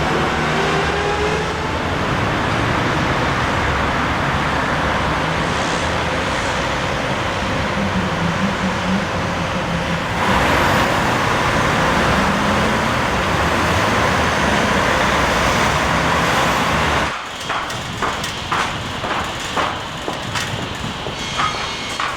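Heavy diesel vehicle engine running over steady traffic-like noise. About 17 seconds in, it cuts abruptly to a quieter sound with irregular clicks and knocks.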